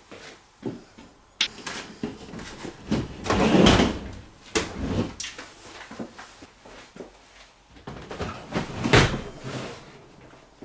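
Handling noises: irregular clunks, knocks and scraping as a desktop computer case is moved and set down on a desk. The loudest is a long scrape about three seconds in, with a sharper knock about a second later and another burst of noise near the end.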